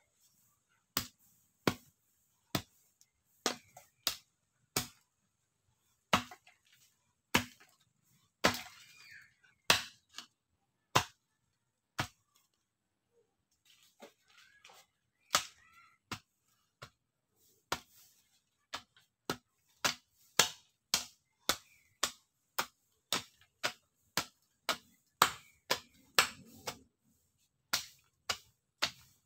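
Hoe blade chopping into packed earth: a series of sharp strikes, about one a second at first, then quicker, close to two a second in the second half, with a pause of about two seconds near the middle.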